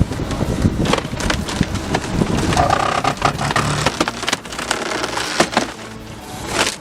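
Wood cracking and splintering as logs are split by a machine: repeated sharp cracks and splintering over a steady engine hum.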